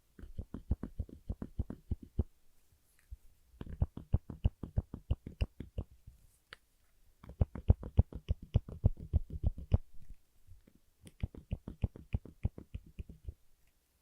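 A black clip clicking quickly as it is pressed and released over and over, in four runs of about two seconds each with short pauses between.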